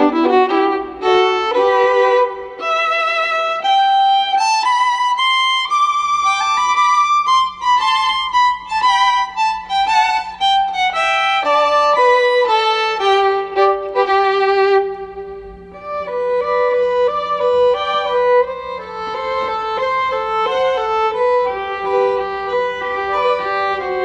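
Instrumental background music: a melody of sustained notes moving in steps, with a brief dip in loudness around the middle.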